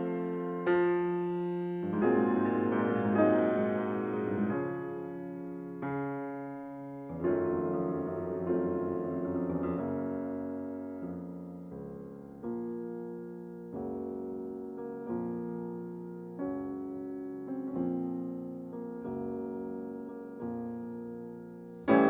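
Background music: slow solo piano, chords struck every second or two and left to ring out.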